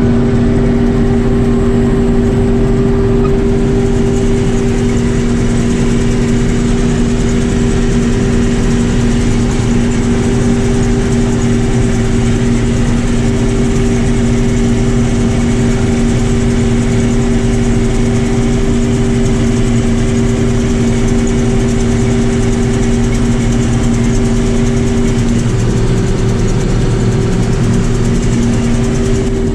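Combine harvester running steadily: a constant machine drone with two strong, unchanging humming tones.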